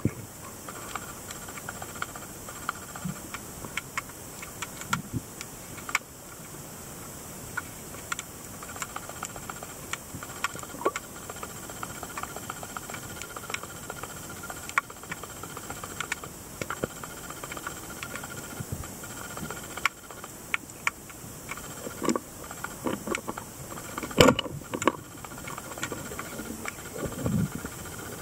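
Underwater ambience picked up by a camera in its housing: a steady hiss with many scattered small clicks and crackles, and one louder knock near the end.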